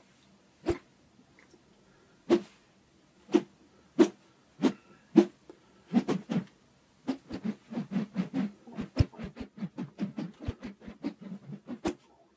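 Plastic rod being whipped in short, sharp strokes. Single strokes come about a second apart, then from about seven seconds in a fast run of strokes follows, several a second.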